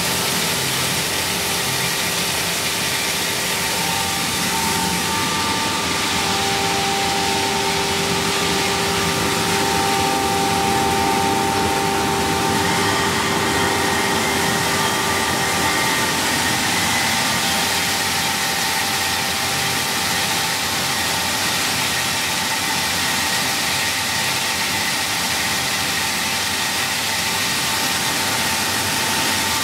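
Bean peeling and splitting machine running steadily: a loud, even mechanical noise with a few steady whining tones over it.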